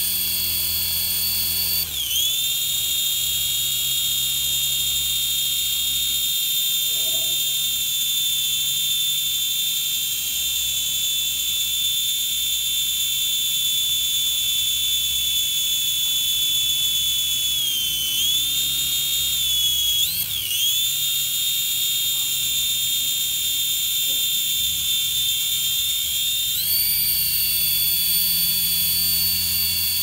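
Small coaxial-rotor toy RC helicopter flying, its motors and rotors making a steady high-pitched whine. The pitch dips briefly a few times as the speed changes and rises again near the end.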